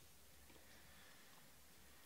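Near silence: faint ticks and rustling of trading cards being handled, over a low steady hum.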